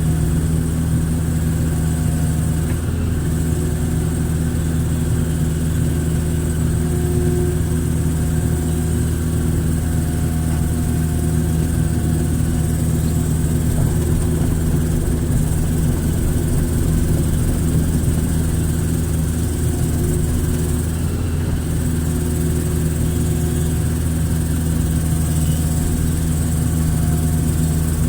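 Hitachi hydraulic excavator's diesel engine running steadily while it digs, with a fainter higher whine that comes and goes.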